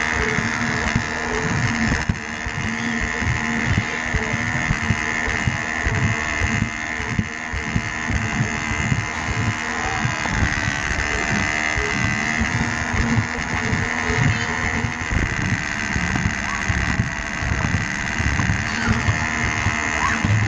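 Small electric motor of a battery-powered Lego Duplo toy train running with a steady whine, close by, with a fast, continuous rattle of its wheels on the plastic track.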